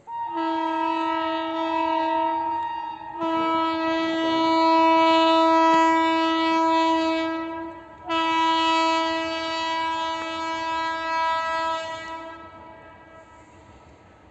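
Horn of a WAP-5 electric locomotive sounding three long blasts, each a steady single pitch; the middle blast is the loudest and the third fades away near the end.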